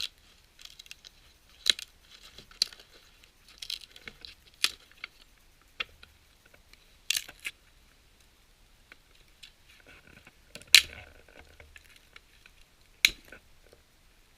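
A series of short, sharp scrapes and clicks at uneven intervals, about ten in all. The loudest comes a little before the middle, with another strong one near the end.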